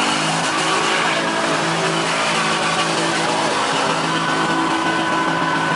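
Lowered single-cab pickup truck doing donuts, its engine held at high revs while the rear tyres spin and squeal on the asphalt. The sound is loud and steady throughout.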